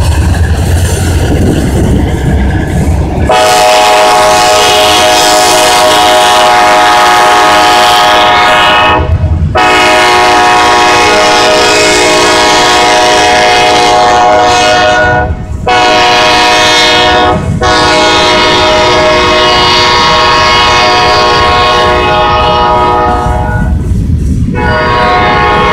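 Freight locomotive horn sounding in long blasts: two long, one short, then one long, the grade-crossing pattern, with the horn beginning again near the end. Before the horn starts, a few seconds in, there is a heavy low rumble from the passing locomotives and cars.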